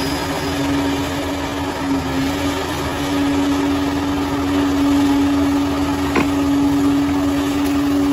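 Bulldozer engine running steadily under load, with one constant droning pitch over a dense mechanical noise, and a single short clank about six seconds in.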